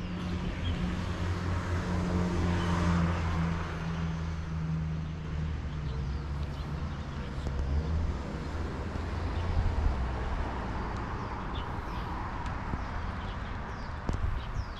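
Road traffic going by, with a low engine hum in the first half that fades away about eight seconds in, and cars swelling past.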